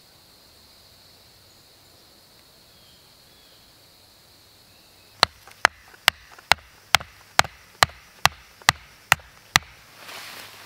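A wooden stake being hammered into forest ground: about ten sharp, evenly spaced strikes, a little over two a second, starting about halfway through. Before them there is only a faint steady high hum.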